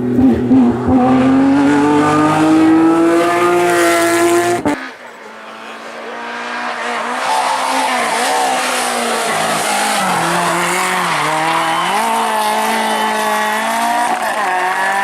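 Rally car engine at full throttle, pitch climbing as it accelerates, then an abrupt cut about four and a half seconds in. After the cut, another rally car's engine grows louder, its pitch rising and dropping through gear changes and lifts.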